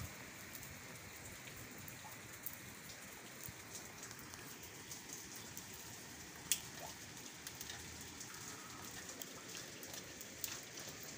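Light monsoon rain falling, a steady hiss of rain with many small drop ticks and one sharper tap about six and a half seconds in.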